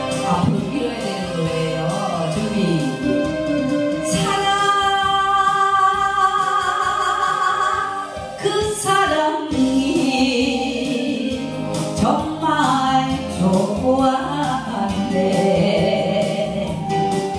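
A woman singing a Korean song into a handheld microphone over a karaoke backing track, holding one long note for about four seconds partway through.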